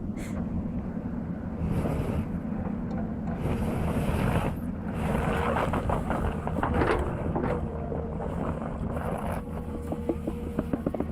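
A heavy machine's engine running steadily, with surges of noise and a series of sharp knocks partway through.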